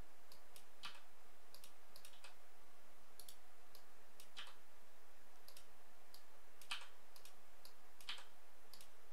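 Scattered computer mouse clicks at irregular intervals, over a steady background hiss.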